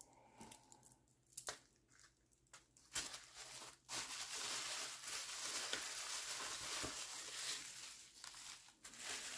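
A few light clicks, then bubble wrap crinkling and rustling continuously as a bubble-wrap bag is handled and unfolded, easing off near the end.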